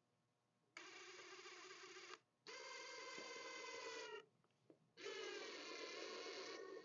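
Power drill driving screw-in traction studs into a garden tractor's rear tire, its motor whining in three bursts of about a second and a half each. The pitch sags at the end of the second burst as the stud seats.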